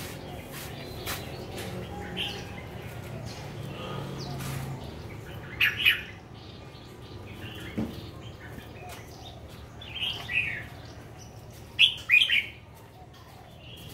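Caged bulbul (merbah) calling in a few short, bright chirping phrases spaced several seconds apart, the loudest about six seconds in and again near the end.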